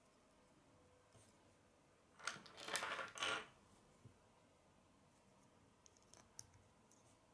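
Small plastic Lego pieces clattering for about a second as fingers rummage through loose pieces, then a few faint clicks as a piece is pressed onto the build near the end.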